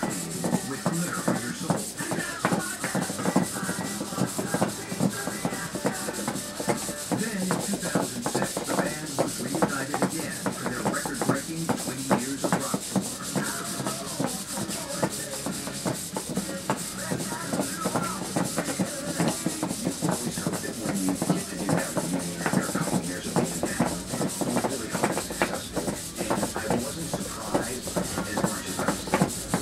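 Micro hexapod robot walking on a plywood board: its cheap Hextronik hobby servos buzz and whir as the six legs move, and its feet tap and scrape on the wood in a dense, unbroken patter of clicks.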